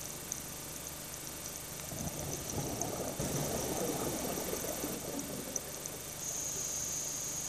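Scuba diver breathing through a regulator underwater: a bubbling exhale of about three seconds through the middle, then the hiss of an inhale near the end.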